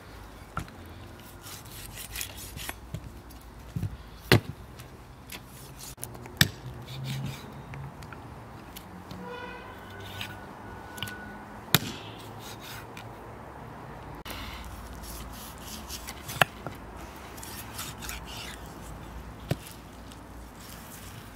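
Large kitchen knife cutting raw poultry on a wooden chopping block: about five sharp knocks of the blade striking the wood, spread out, with quieter cutting and scraping between them.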